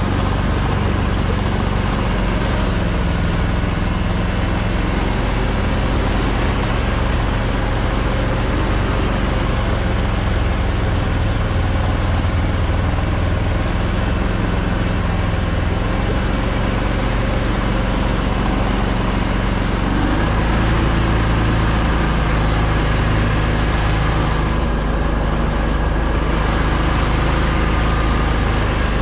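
Argo Aurora 8x8 950 amphibious ATV engine running steadily under load. Its pitch shifts up and down several times, with a quick rise about two-thirds of the way through.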